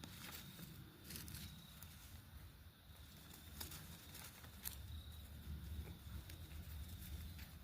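Faint, scattered taps and scratches of kittens' paws scampering and playing, over a low rumble.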